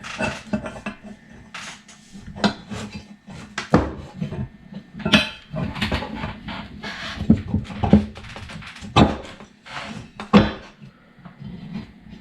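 Irregular clicks, knocks and light metal clatter as the parts of a 1G DSM 90 shifter assembly are handled and fitted back together, the greased plastic bushing going into the shifter arm.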